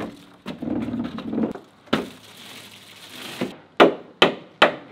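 Plywood sheets being shifted and knocked into place on a van floor: a rumbling scrape and a sharp knock, then three sharp knocks about half a second apart near the end as the tongue-and-groove pieces are seated.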